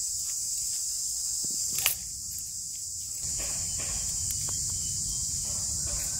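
Steady high-pitched drone of insects, with a few sharp clicks, the loudest about two seconds in, and a low rumble joining about three seconds in.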